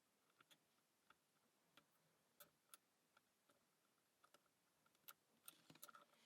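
Faint, irregular small clicks and ticks of a lock pick and tension wrench working the pins inside a Standers 44 mm laminated padlock, a dozen or so over the stretch, with a few closer together near the end.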